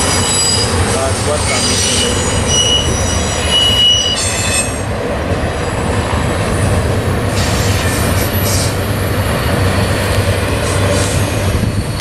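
Intermodal freight cars loaded with trailers and containers rolling past, with a steady rumble of wheels on rail. High wheel squeal rings over it for the first few seconds, then dies back and returns faintly a few times.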